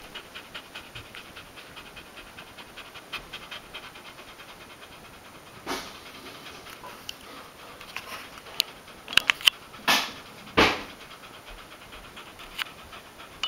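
Chow Chow dog panting fast and steadily, about four breaths a second. A few louder short rushes and clicks come about two-thirds of the way through.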